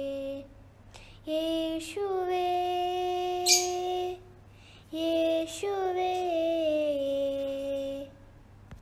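A single high voice sings wordless, drawn-out notes with no accompaniment: a short note then a long held one, twice over, the last sliding down in pitch. These are the closing phrases of a devotional song.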